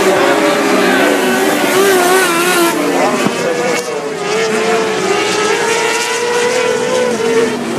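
Several non-wing sprint car engines running at once, their pitch wavering up and down as the cars change speed.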